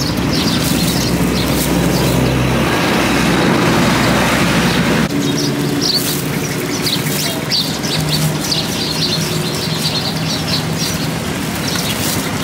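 Steady busy street-market noise with passing vehicle traffic. The sound changes abruptly about five seconds in, and short high chirps follow.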